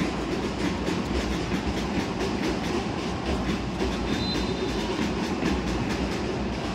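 Basketball arena din: a fast, steady clatter of beats over general crowd and court noise. A brief, faint whistle sounds about four seconds in.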